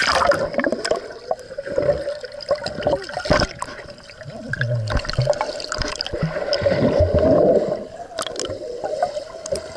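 A child jumping into a swimming pool with a sudden splash, then underwater water sounds of her swimming: bubbling and gurgling, heard muffled through a camera held under the surface.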